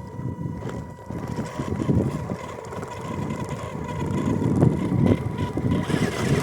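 MN128 1/12-scale RC crawler's small electric 390 motor and gear train running under load as the truck climbs an obstacle, with a low, uneven rumble that grows louder toward the end.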